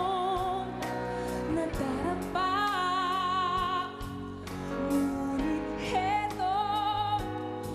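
A woman singing a ballad into a handheld microphone over an instrumental backing, holding long notes with vibrato.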